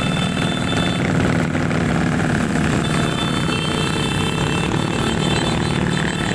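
Motorcycle engines of a riding convoy running together, a dense rapid low pulsing, with thin steady high tones coming in near the start and again in the middle.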